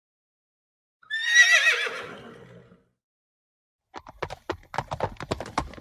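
A horse whinnies once, a high, quavering neigh that falls in pitch and trails off over about a second and a half. A couple of seconds later hooves start clip-clopping in a quick, uneven beat.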